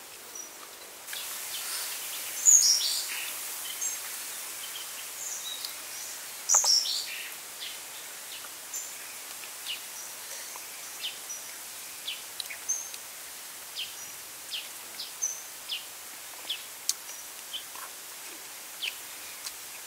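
Outdoor background hiss with birds chirping and short clicks and smacks of a man eating roasted duck by hand. There are two louder sharp noises, about two and a half and six and a half seconds in.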